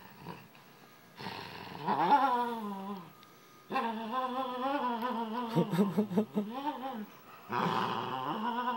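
Weimaraner making funny, drawn-out vocal noises while tugging on a toy: three long, wavering calls that slide up and down in pitch, the middle one the longest, with short gaps between them.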